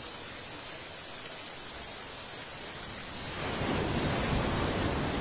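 Steady hiss of heavy cyclone rain and wind, with no distinct events; about three and a half seconds in it swells louder and deeper.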